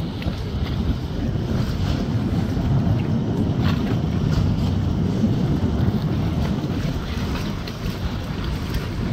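Wind blowing across the microphone: a steady rough noise, heaviest in the low end, rising and falling a little.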